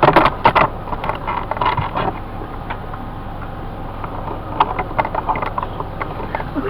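Handling noise: a run of light clicks, taps and rustles, busiest in the first second and again around four to five seconds in.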